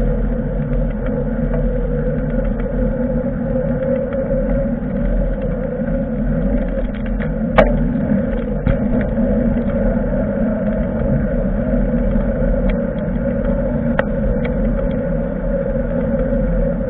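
Steady wind and road noise picked up while riding a bicycle, with a few short sharp clicks or knocks, one about midway through and another later.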